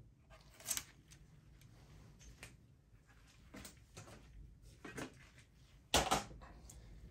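Faint handling noises of computer parts: scattered light clicks, with a sharper knock just under a second in and a louder knock about six seconds in.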